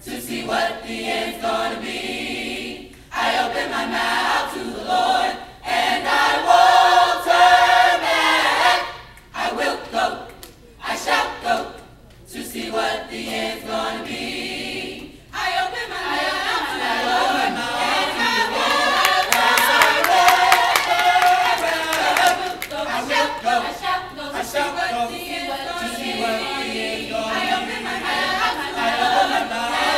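Mixed choir of men and women singing a cappella. For the first half the singing comes in short phrases with brief breaks between them, then it runs on without a break from about halfway.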